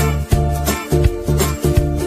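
Background instrumental music with a steady beat, its notes and bass changing in an even rhythm every few tenths of a second.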